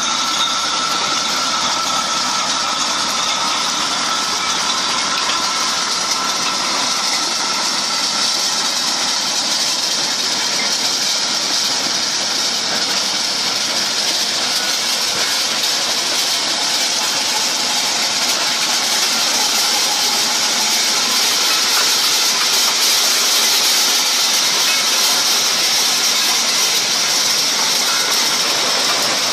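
Tractor engine running with the steady noise of a tractor-drawn harvester working: the lifting share churning through soil and stones and the chain elevator carrying the load.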